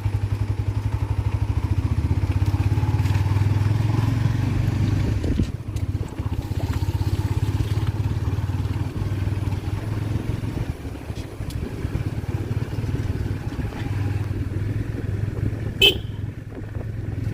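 A small engine running steadily with a fast, even pulse, easing off briefly after about five seconds. One brief sharp sound comes near the end.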